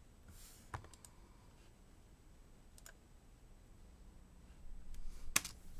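A few short, sharp clicks in a quiet room: one about a second in, one near three seconds, and a louder one near the end.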